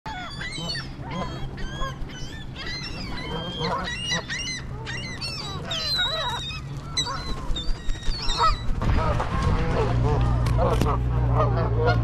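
A flock of Canada geese honking, many short calls overlapping. A low steady rumble comes in about nine seconds in.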